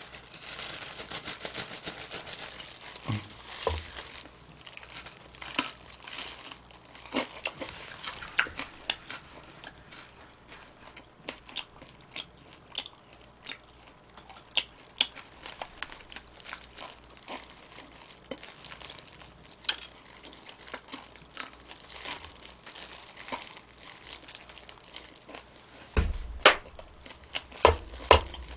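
Close-miked eating noises: scattered crinkles and crackles as a plastic-gloved hand handles fried chicken, with a louder cluster of clicks near the end.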